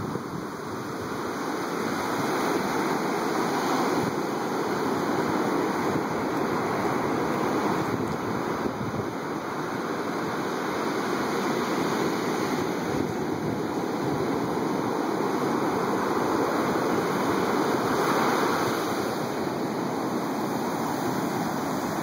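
Heavy storm surf breaking and washing up a sandy beach: a continuous rush of water that swells louder every four or five seconds as waves break.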